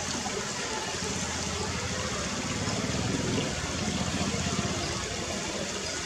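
Shallow stream trickling and running over rocks, with a small-scale RC truck's wheels splashing through the water. The splashing grows a little louder from about two and a half to four and a half seconds in.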